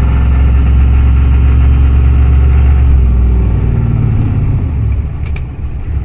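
Ford 7.3 IDI V8 diesel with a new stage-one turbo pulling in first gear, heard inside the cab; about five seconds in the engine eases off for the shift, and a faint high turbo whistle slides down in pitch.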